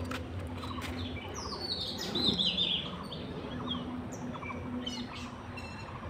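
Small birds chirping, with a quick run of falling chirps about two seconds in, over a faint steady low hum.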